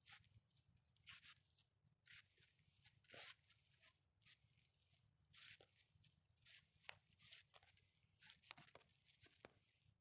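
Faint footsteps crunching through dry fallen leaves, about one step a second, over a low steady rumble.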